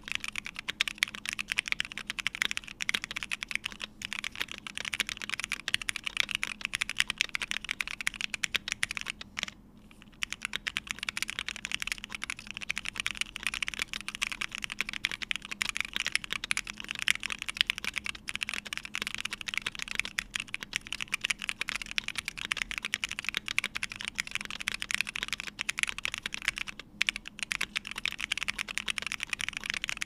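Fast, continuous typing on a Bakeneko mechanical keyboard with lubed Hyperglide Black linear switches on an FR4 plate and CRP keycaps: a dense stream of keystrokes, with a short pause about a third of the way in.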